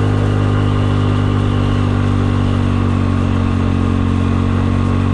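Kymco People 250 scooter's single-cylinder engine and slip-on muffler running at a steady cruise of about 50 mph, one even drone that holds its pitch. The gaps at the muffler-to-down-pipe joint are sealed with JB Weld high-heat putty to stop exhaust leaks, and the exhaust sounds quiet for that speed.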